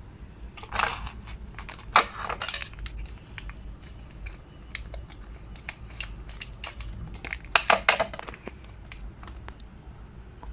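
Packaging being handled and opened during an unboxing: crinkling and crackling with sharp clicks and taps, coming in three denser flurries.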